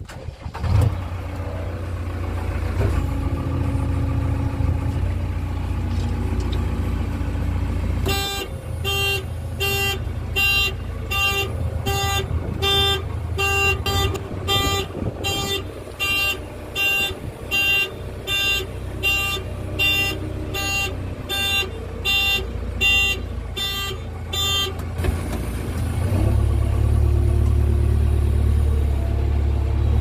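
A JCB 3DX backhoe loader's diesel engine starts about a second in and runs steadily. From about eight seconds in, its backup alarm beeps evenly, about one and a half beeps a second, for some seventeen seconds. Near the end the engine runs louder as the machine drives off.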